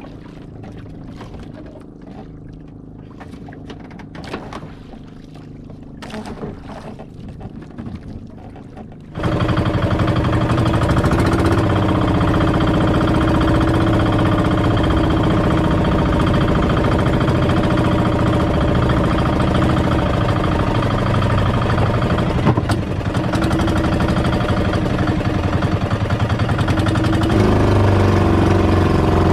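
Outrigger fishing boat's engine: a low hum with a few knocks for the first nine seconds, then the engine comes in suddenly, loud and steady, and its note rises a little near the end.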